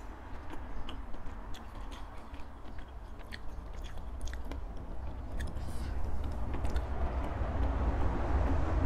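Close-miked mouth chewing, with small sharp clicks of a boiled egg's shell being picked off by hand. A rustling handling noise grows louder near the end.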